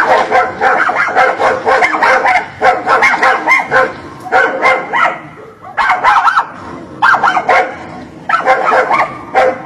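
A dog barking and yapping in rapid volleys, about seven runs of quick barks each lasting roughly a second, with short gaps between them.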